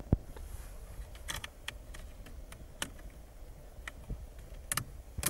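Irregular light clicks and taps of hands working on the plastic parts and electrical connectors of a steering column, with one low knock just after the start and a sharper click at the end.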